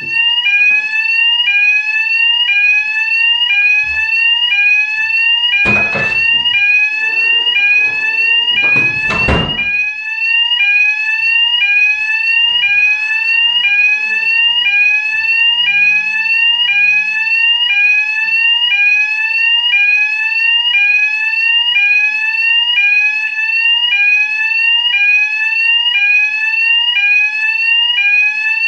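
Apartment fire alarm sounding continuously: a loud, repeating rising whoop, about one sweep a second. Two short, loud noises cut across it about six and nine seconds in.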